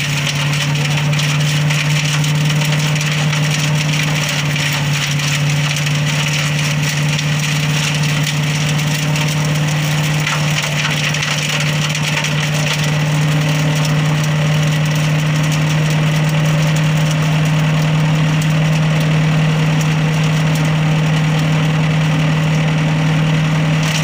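Rico RI6060 wood chipper with a 6.5 hp engine running steadily under load as branches are fed in, the engine's even drone overlaid by continual crackling and crunching of wood being chipped.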